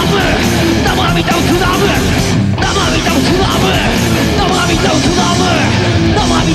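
Rock band playing a loud, heavy number that fuses rock, hip-hop and Buddhist sutra chanting: pounding drums, electric guitar and a shouted lead vocal.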